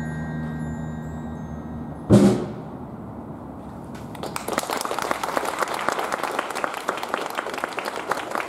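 Brass band's held final chord, with a glockenspiel ringing over it, dies away and is closed by a single loud final hit about two seconds in. From about four seconds in, an audience claps.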